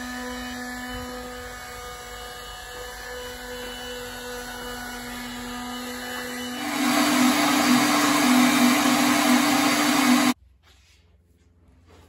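Handheld power tool running with a steady whine against a wooden carving. About six and a half seconds in it gets louder, slightly higher and rougher as it works the wood, then it cuts off suddenly a little after ten seconds.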